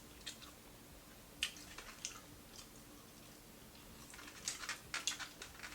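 Close-up chewing of crunchy fried food: a few scattered crisp crunches, then a denser run of crunches about four seconds in.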